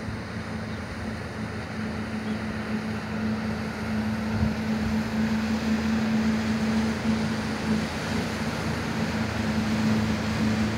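Motorboat engine running with a steady hum, under wind on the microphone and the wash of its wake breaking on the water.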